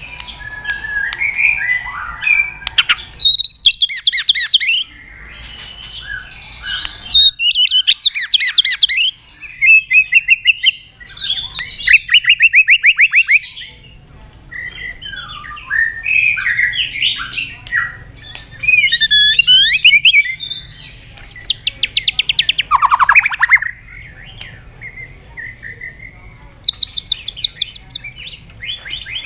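White-rumped shama (murai batu) singing loudly in a long run of varied phrases: sweeping whistles, fast trills and rapid rattling strings of repeated notes, broken by short pauses.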